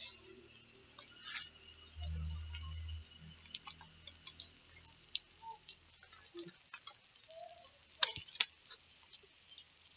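Scattered light ticks and crackles from a stick fire in a clay stove under an iron wok of frying onions, with two louder sharp cracks about eight seconds in as dry sticks are pushed into the fire. A low hum lasts about a second from two seconds in.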